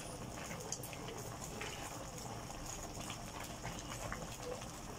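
A pot of vegetable soup boiling, a steady bubbling hiss, with a few faint light clicks as a ladle is moved through the broth.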